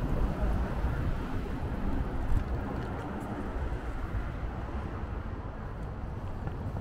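Steady city street noise of passing traffic, with low wind rumble on the microphone.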